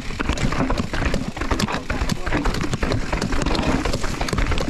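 Mountain bike rattling and clattering down a rough trail at speed: a dense run of irregular knocks and clicks from the bike over rocks and roots, over a steady low rumble of wind on the microphone.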